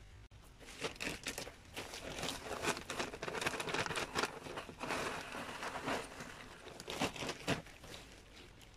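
Plastic bag of garden soil crinkling and rustling in irregular bursts as it is handled and tipped out into a planter, with soil spilling from it; the loudest crinkles come near the end.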